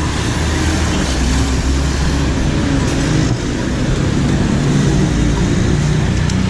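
Steady road-traffic noise with a low engine rumble from motor vehicles.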